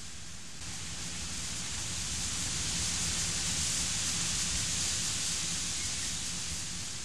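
Heavy thunderstorm rain and wind, a steady hiss that swells about a second in and eases off near the end.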